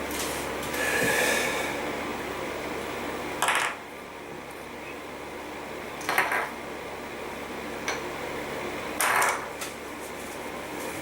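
Hard plastic toy pieces clattering and knocking against each other or a table in four short bursts, a few seconds apart, over a steady background hum.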